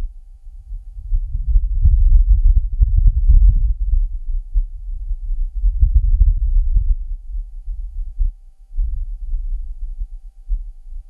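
Wind on Mars buffeting the microphone on the side of NASA's Perseverance rover, heard as a low rumble that swells in two strong gusts and a weaker one near the end, with a few faint clicks. The recording is filtered to remove the rover's own noise.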